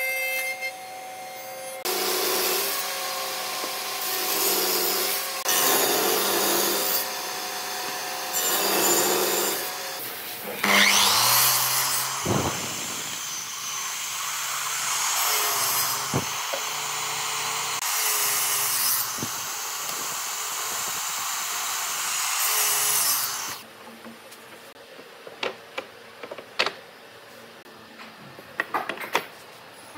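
Electric woodworking machines, a planer and a saw, cutting and planing wooden boards in a series of passes a few seconds long with short breaks between them. The machines stop a few seconds from the end, leaving only light knocks and taps.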